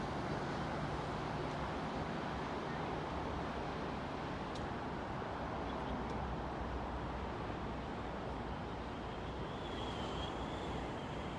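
Steady hum of distant road traffic from an elevated highway, with a short faint high whistle about ten seconds in.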